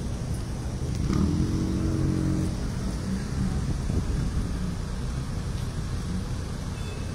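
Road traffic: a vehicle engine close by grows louder about a second in and fades over the next couple of seconds, over a steady low rumble of traffic.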